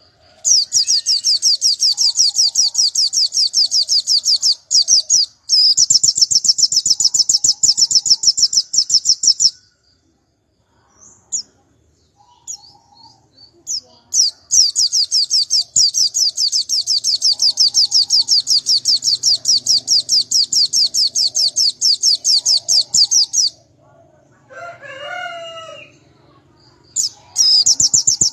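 White-eye (pleci) singing long, rapid, high-pitched trills in runs of several seconds, with short gaps and a few single chirps between them. A rooster crows once about 25 seconds in.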